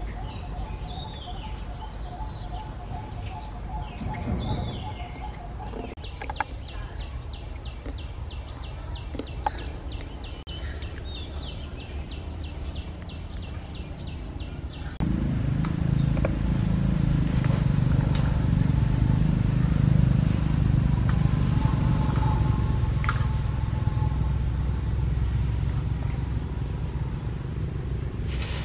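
Outdoor ambience: birds chirping over a fast, even high ticking trill. About halfway through, the sound switches abruptly to a louder, steady low rumble.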